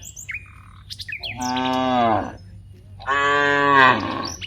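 Cows mooing: two long moos of about a second each, one beginning about a second in and the second near three seconds, the pitch of the first sinking slightly as it ends. Small birds chirp briefly near the start.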